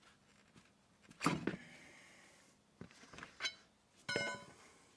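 Several separate metal knocks and clanks of hand tools against the steel track frame of a mini excavator. The loudest comes about a second in, and one near the end rings briefly like struck steel.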